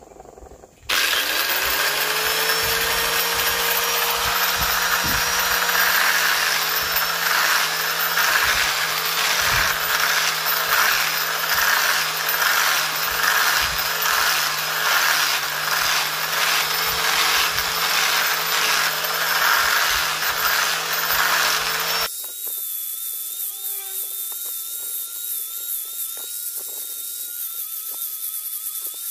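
Electric angle grinder fitted with a sanding disc starts up about a second in, its motor whine rising to speed, then runs steadily while the disc sands down the rough surface of a three-blade boat propeller blade. About 22 seconds in the sound suddenly turns quieter and thinner, leaving a wavering high whine.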